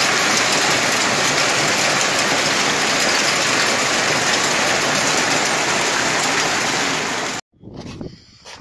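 Heavy rain mixed with hail pouring down, a dense steady rush with a fine rattle of hailstones. It cuts off abruptly a little over seven seconds in, leaving only faint scattered sounds.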